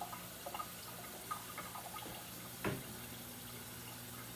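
Kitchen faucet running tap water into a glass pitcher full of ice, filling it. A few small clicks, and one sharper knock about two and a half seconds in.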